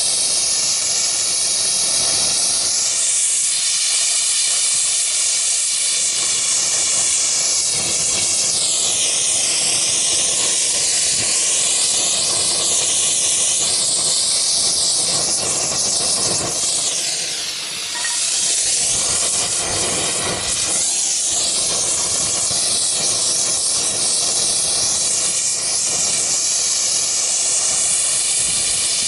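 Oxygen-fed gas torch flame hissing steadily and loudly, its tone wavering, with a brief dip in level about two-thirds of the way through.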